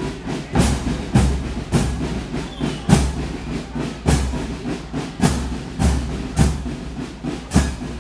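Military marching band's drum section playing a steady marching beat, the bass drums striking a little under twice a second.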